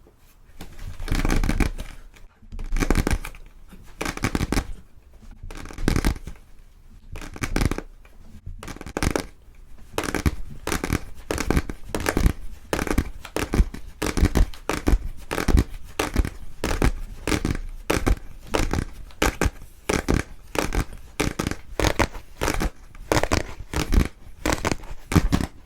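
Close-miked ASMR trigger sounds: separate rough, noisy bursts every second or so, then from about ten seconds in a quick, steady run of short strokes, several a second.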